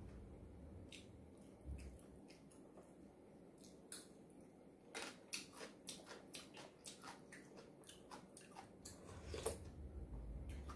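Close-miked chewing and mouth sounds of a person eating: soft clicks and small wet smacks scattered through, thicker in the second half.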